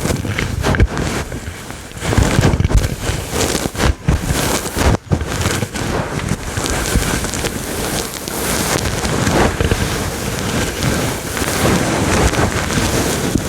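Fast, aggressive scratching on a fluffy furry microphone windscreen, heard as a loud, dense, crackling rustle with a few brief pauses.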